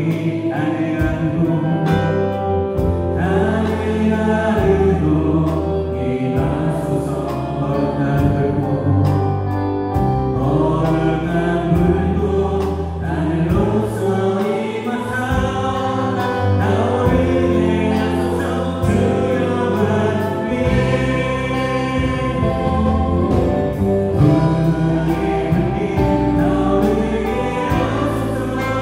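Live worship band playing a gospel praise song with singing: electric guitar, electric bass, keyboard and drum kit under a sung melody.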